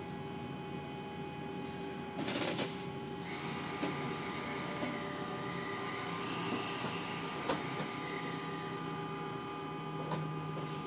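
Inside the driver's cab of a train: a steady hum made of several tones. About two seconds in comes a short, loud burst of hiss, followed by a softer hiss that lasts about five seconds, and a few sharp clicks.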